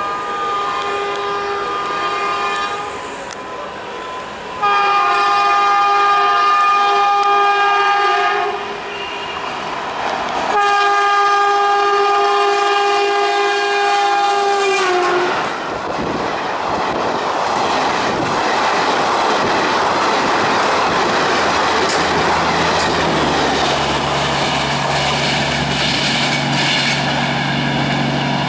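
WAP-4E electric locomotive's multi-tone air horn sounding three long blasts, the last one dropping in pitch as the locomotive rushes past. Then the coaches of the train go by at speed with a loud rushing roar and wheel clatter, and a steady low hum joins near the end.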